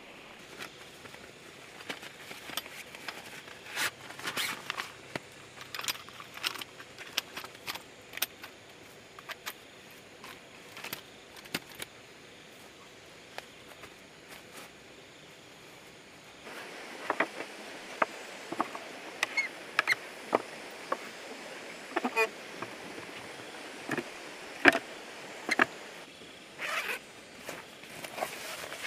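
Camping gear being handled: nylon fabric rustling with scattered sharp clicks and taps. From about halfway on, the handling gets busier and louder as a fabric backpack is rummaged through, its zips and buckles clicking.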